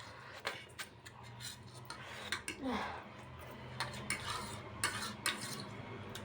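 Eating utensils clinking and scraping against a bowl of noodles, a scattering of sharp clicks and short scrapes.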